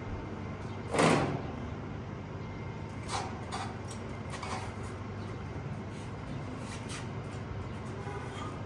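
Metallic clunks and rattles from a sport motorcycle being handled on its metal fold-up trailer. There is one sharp knock about a second in and a few lighter knocks a couple of seconds later, over a steady background hum.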